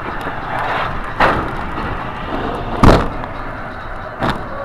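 A vehicle driving on a snowy road, heard from inside behind the windshield: steady road and engine noise, with three sharp thuds about a second and a half apart, the middle one the loudest.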